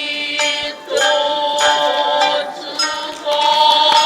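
Kabuki stage accompaniment music: a run of long held notes, each lasting about a second before the pitch changes.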